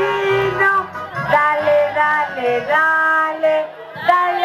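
Music: a song with singing voices over sustained low accompaniment notes.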